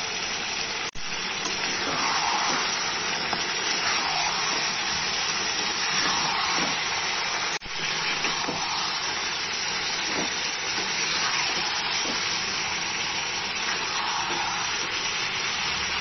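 Chicken pieces sizzling in hot oil in a steel kadai on high flame, a steady hiss with occasional spatula strokes as they are stirred, at the kosha stage where the liquid is cooking off and the oil separates. The sound breaks off for an instant twice, about a second in and midway.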